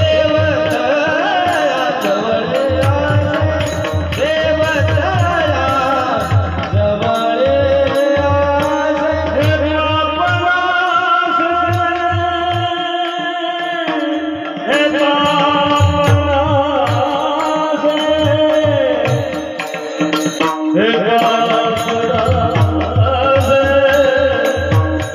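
Marathi Warkari kirtan singing: a voice carrying a melodic chal over a steady percussion beat with bright metallic clicks; the drum drops out briefly twice.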